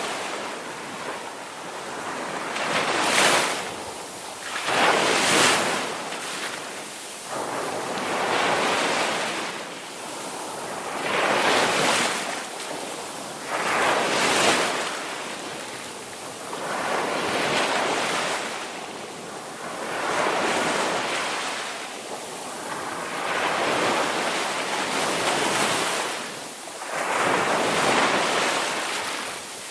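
Ocean surf: waves breaking and washing in one after another, a swell of rushing water every two to three seconds, with some wind.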